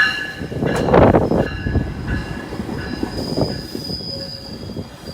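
GO Transit locomotive making a strange high-pitched squealing noise, several thin squealing tones over a rough rumble. There is a loud, brief burst of noise about a second in, and a thin high whine from about three seconds on.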